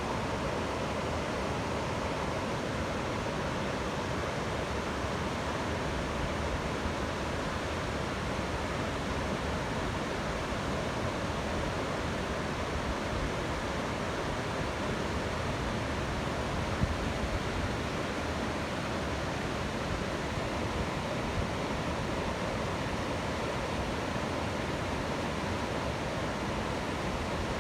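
Waterfall: a steady rush of falling water, even and unbroken.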